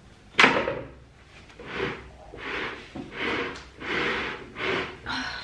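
A woman breathing hard in a run of short, heavy huffs, about one every 0.7 seconds, straining at a very heavy pot.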